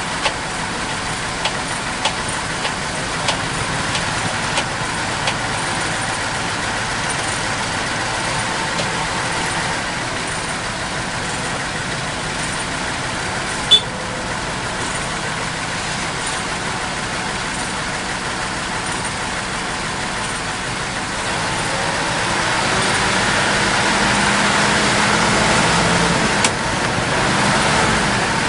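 Heavy diesel engine running steadily, with a row of light ticks in the first few seconds and one sharp click about halfway through. Past two-thirds of the way the engine grows louder and a deeper note comes in.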